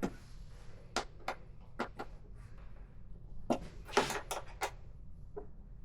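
A series of sharp, irregular clicks and taps, about ten, with a cluster around the middle: screws and a hex key being worked by hand on a motorcycle windshield mount, snugged thumb tight.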